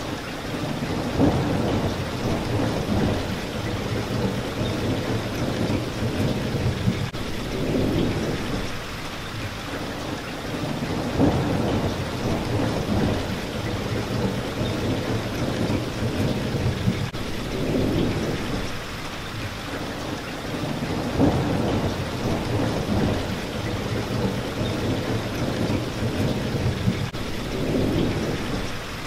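Steady heavy rain beating on a window pane, with low rumbles of thunder swelling up several times.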